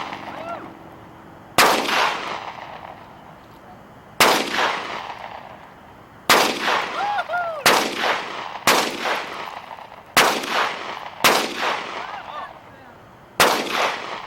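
Pistol fired eight times in an uneven string, the shots from half a second to two seconds apart, each loud crack trailing off in an echo.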